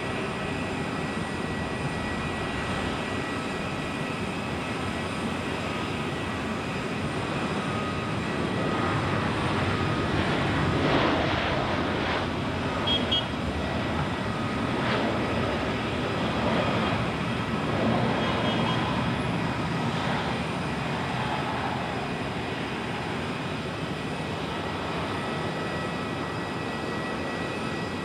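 Airbus A320-214 jet airliner landing on a wet runway, its CFM56 jet engines making a steady noise that swells for about ten seconds in the middle and then eases off, typical of reverse thrust on the landing roll.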